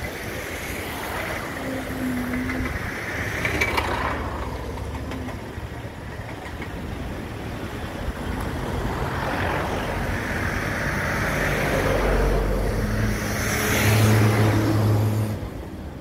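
Diesel truck engines of a concrete mixer truck and a truck-mounted concrete pump running steadily. The engine note grows louder about twelve seconds in and drops off just before the end.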